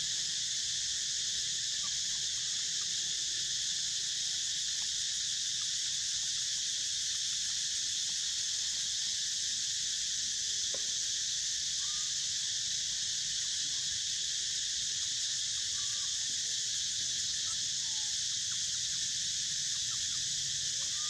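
Steady, unbroken high-pitched drone of an insect chorus, with a few faint short chirps now and then.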